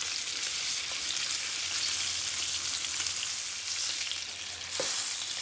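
Whole pomfret fish shallow-frying in spiced oil in a frying pan, with a steady crackling sizzle. The sizzle swells briefly about four seconds in as hot oil is spooned over the fish, and there is a light knock of the spoon on the pan just before the end.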